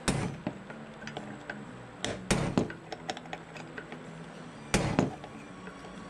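Claw hammer striking a punch against a stubborn roll pin in a VW Beetle pedal assembly, a sharp metal-on-metal clank with each blow. One blow comes at the start, three quick ones about two seconds in and two near the end, with lighter taps between. The pin is not coming out.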